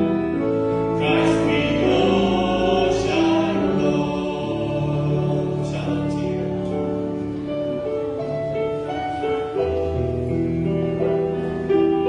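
Church music with voices singing over sustained, held chords.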